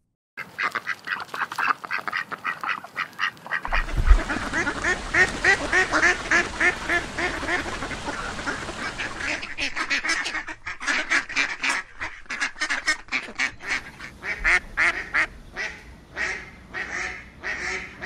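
Ducks quacking, a flock calling over one another: separate quacks at first, a crowded chorus of overlapping calls from about four seconds in, then quick runs of separate quacks again in the second half.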